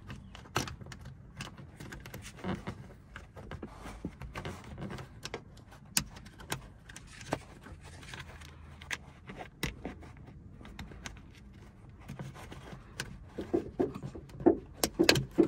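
Light plastic clicks and taps as the plastic trim cover of a Honda Civic sun visor mount is worked by hand over the mounting screws, scattered irregularly, with a quicker run of louder clicks near the end.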